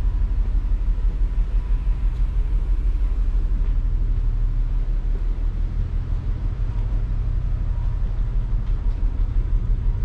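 Steady low rumble and hum of a container ship's machinery on its bridge, with no distinct events.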